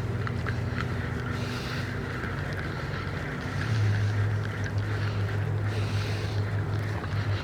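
A steady low engine drone that gets louder a little under four seconds in, with wind on the microphone.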